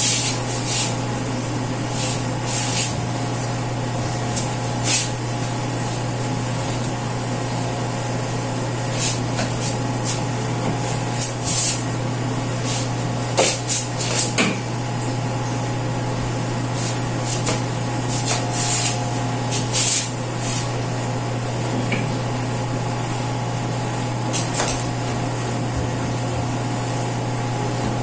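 Short, irregular scrubbing and wiping strokes of household cleaning, with a few brief hissy scrapes every second or two, over a steady low electrical hum.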